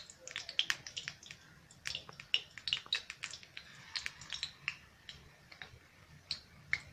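Hot oil in a kadhai crackling and spitting with irregular sharp pops as dough balls of semolina and coconut are dropped in to deep-fry. The pops come thick at first and thin out over the last couple of seconds.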